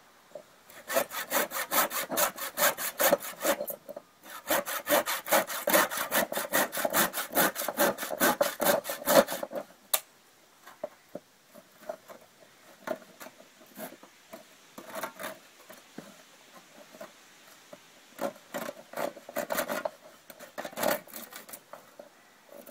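Handsaw cutting through a frozen raw bone with quick back-and-forth rasping strokes. The strokes come in a fast, steady run for about the first nine seconds, with a brief pause near four seconds, then turn slower and scattered.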